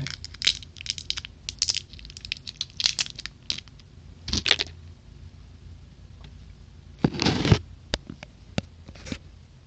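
Plastic Toxic Waste candy packaging crinkling and crackling as it is handled and opened, in a run of short crackles. A louder tearing crinkle comes about seven seconds in.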